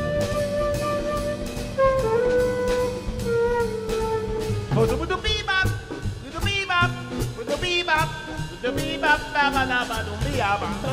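Live jazz band with a flute solo: a long held note that steps down to a lower one, then fast runs of curling, bending phrases from about halfway through, over drum kit and band backing.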